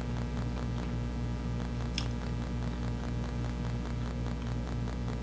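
Steady low hum with a faint regular pulse, and a single faint click about two seconds in.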